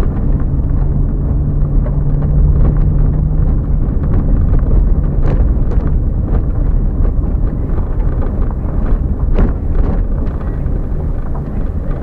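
Car driving along an unpaved dirt road, heard from inside the cabin: a loud, steady low rumble of tyres and engine, with a faint engine hum through the first half and occasional clicks and knocks.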